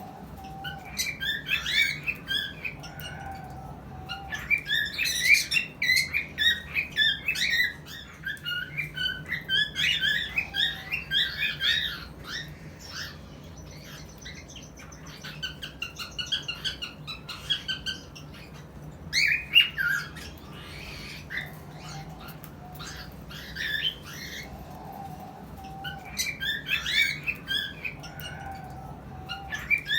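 Cockatiels chirping and squawking in fast runs of short, high calls, coming in bursts with quieter spells between.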